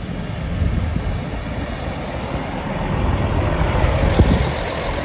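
Diesel engine rumble of a Northern Class 158 diesel multiple unit at the station platform, growing a little louder after about three seconds.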